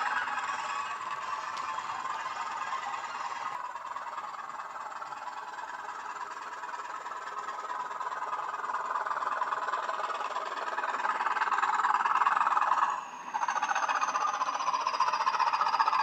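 Model Class 20 diesel locomotive running with a Hornby HM7000 sound decoder: the recorded English Electric engine sound through the model's small speaker, with the wagons running on the track. It is quieter in the middle and louder toward the end, with a brief dip about thirteen seconds in.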